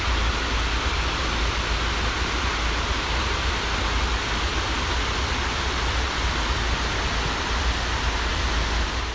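Steady rush of the Snake River pouring over the long, low weir of Idaho Falls, a continuous even roar of falling water.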